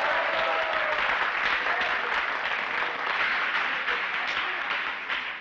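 A class of students clapping and cheering, with a few shouted voices at first. The applause dies away near the end.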